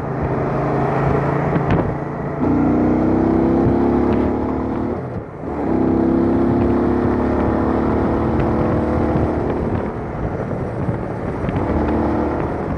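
Cruiser-style motorcycle engine running under way at road speed, heard from the rider's position. The engine note eases off briefly about five seconds in, then pulls steadily again.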